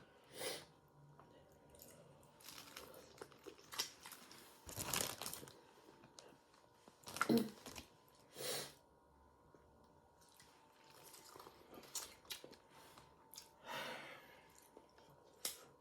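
Eating boiled shellfish by hand: shrimp and crab shells crunching and crackling as they are peeled and broken, with chewing. The sounds come in irregular short bursts, the loudest about seven seconds in.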